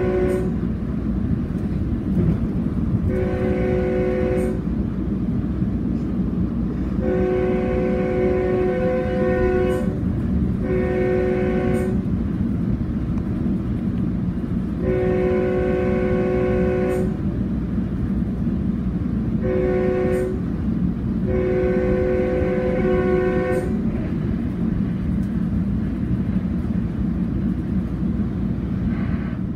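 Diesel locomotive's air horn sounding a chord in a series of about six long and short blasts, stopping about 24 seconds in, over the steady low rumble of the train rolling past.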